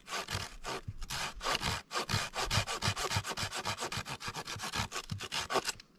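Gerber folding hand saw cutting into a dry wooden branch with quick, even back-and-forth strokes, the teeth rasping through the wood; the sawing stops just before the end.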